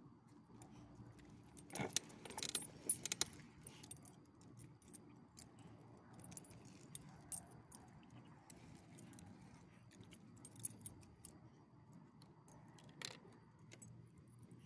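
Metal ID tags and rings on a small dog's collar jingling: a cluster of clinks about two seconds in, then a few fainter clinks later.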